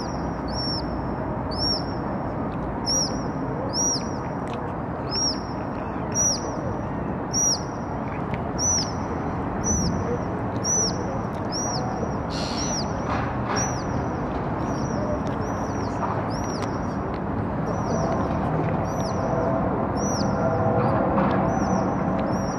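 Eurasian otter giving a shrill, high-pitched call over and over, about once a second, each call rising and then falling in pitch. It is a mother's continuous shriek to keep her kits in line. A steady rumble of city traffic runs underneath.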